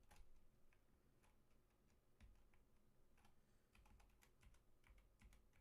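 Faint, irregular key presses on a computer keyboard as newly fitted keycaps are tested one key at a time.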